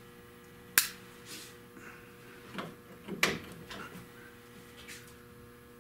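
A sharp click about a second in, then a few lighter knocks and scrapes as the metal T-top trim piece and a body-panel tool are handled and set in place.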